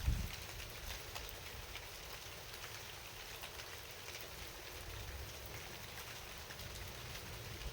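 Rain falling at night, an even hiss dotted with many small drop ticks over a low rumble. A dull thump comes right at the start.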